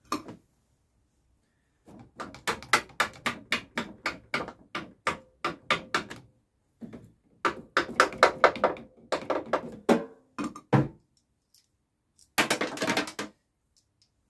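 Ratchet spanner clicking in quick, even strokes as bolts are drawn up, about four clicks a second in runs, with a faster burst near the end.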